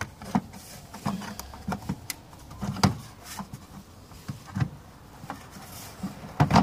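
Irregular plastic clicks and knocks from the Opel Meriva B's rear tail light housing being handled and pressed into place on the car body, the loudest a little before three seconds in and just before the end.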